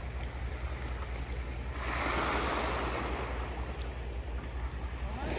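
Small waves washing onto a pebble beach, one wash swelling about two seconds in and fading, another starting near the end.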